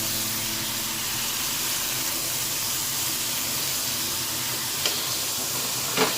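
Steady hiss of food sizzling in a frying pan, with two light clinks of a utensil near the end.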